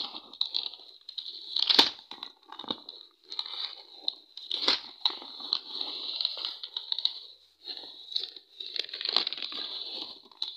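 Plastic wrapping crinkling and cardboard rubbing as a plastic-wrapped ream of copy paper is handled and slid out of a cardboard box. The rustling is irregular, with sharp snaps about two and five seconds in.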